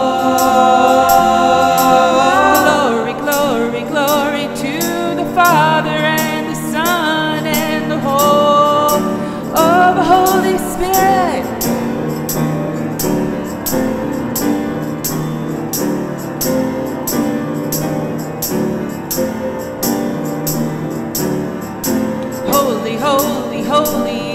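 Worship song accompaniment of piano and a steady tambourine beat. For roughly the first ten seconds, a voice holds long notes that slide up and down without clear words; after that the instruments carry on alone.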